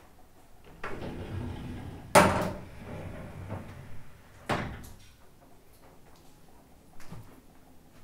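A few sudden knocks or bangs over faint background noise, the loudest just after two seconds in, another at about four and a half seconds and a weaker one near seven seconds, each dying away quickly.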